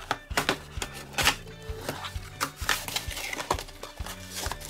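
A small printed cardboard box opened by hand: its top flaps pried up and folded back, with irregular cardboard clicks, scrapes and rustles, over background music.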